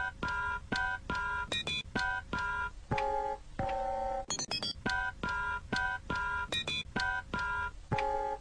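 Electronic beeping tones in a repeating looped sequence, short beeps like touch-tone phone keys at several pitches with quick higher blips between, the pattern coming round about every four to five seconds.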